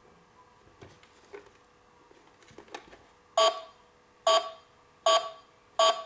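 Toy ATM's electronic keypad: a few faint clicks, then about halfway in four identical short beeps less than a second apart, as keys are pressed.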